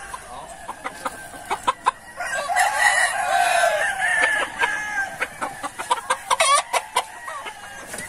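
Chickens in a coop yard: roosters crowing and hens clucking, loudest about halfway through, with sharp clicks scattered throughout.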